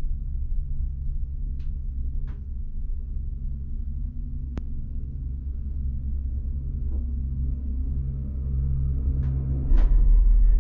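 Low steady rumble of a single-seat chairlift running along its cable, with a few faint clicks. About ten seconds in, a louder low rumble sets in.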